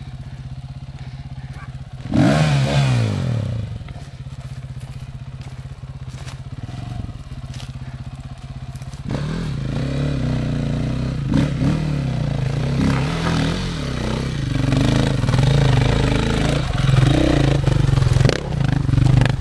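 Adventure motorcycle engine idling with an even low thudding, a short burst of revs that falls away about two seconds in. From about nine seconds in it runs louder, its revs rising and falling as the bike works up a rocky hill-climb.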